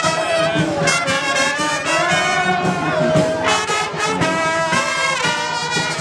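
Brass band music, with trumpets and trombones holding and sliding between notes.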